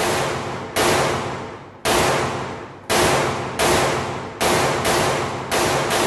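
CZ 805 Bren 5.56 mm rifle fired in a steady string of single shots, roughly one a second. Each shot rings on in a long echo off the walls of the indoor range.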